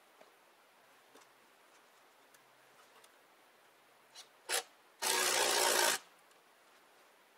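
Cordless impact driver sinking a large screw into a log joint: two short blips, then about a second of steady running before it stops.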